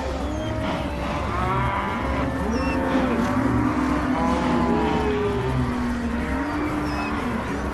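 Stomach growling sound effects, many layered over one another: long growls that bend up and down in pitch, several sounding at once with no break.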